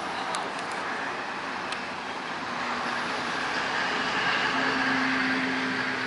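Steady background noise of distant motor traffic, with a low engine hum coming in past the middle and growing louder, and a few faint clicks early on.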